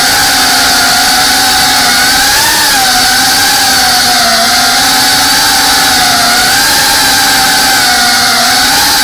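FPV quadcopter's electric motors and propellers whining steadily, the pitch wavering up and down as the throttle changes.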